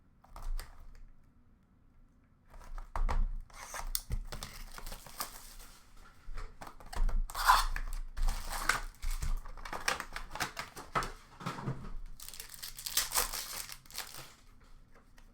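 Trading-card packaging, Upper Deck Allure hockey packs and their wrapping, being torn open and crinkled in irregular bursts, with a longer stretch of crinkling near the end.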